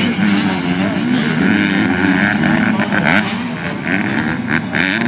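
Several Super Mini motocross bikes racing at once, their engines revving up and down and overlapping with constantly changing pitch.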